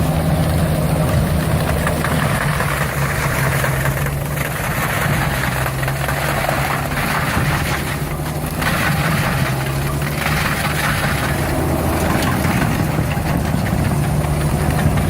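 Stump grinder at work: its engine runs steadily under load while the cutter wheel chews into a tree stump. The rough grinding noise swells and fades every few seconds.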